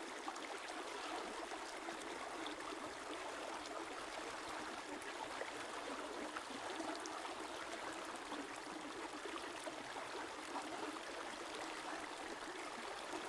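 A river or stream flowing steadily: an even, unbroken rush of running water with almost no low rumble.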